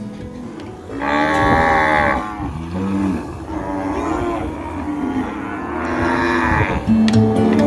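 Cattle mooing: a long loud moo about a second in and another later on, with lower, shorter moos between.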